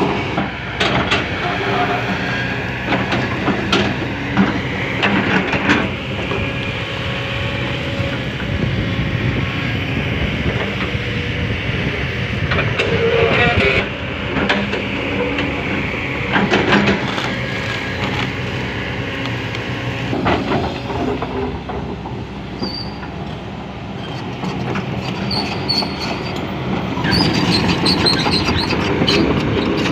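Kobelco SK200 hydraulic excavator working, its diesel engine running steadily under load. Repeated metallic clanks and squeals come from the steel crawler tracks and working gear.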